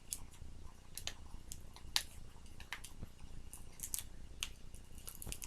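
Scattered small clicks and light rustles of a boxed deck of playing cards and its packaging being handled.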